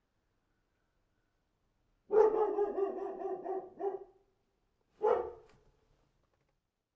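Dog sound effect: one drawn-out call of about two seconds, then a single short bark about a second later.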